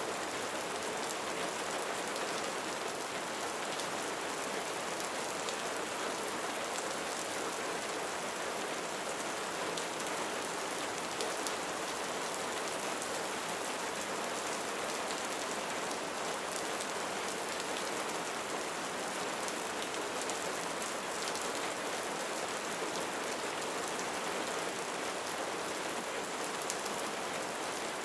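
Steady rain falling on a roof: an even hiss with scattered ticks of single drops.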